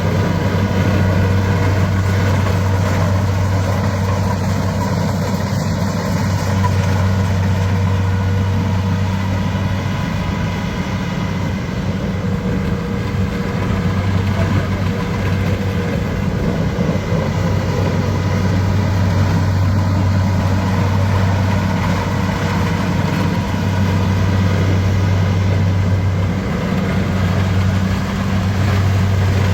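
Engine of heavy machinery running at a steady speed: a loud, even drone that doesn't rise or fall.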